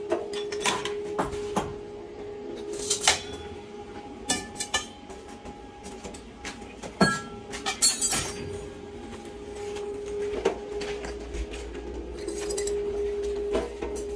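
Lengths of square steel tubing clinking and knocking against each other as they are handled: a dozen or so sharp metallic clinks at irregular intervals, some ringing briefly, over a steady hum.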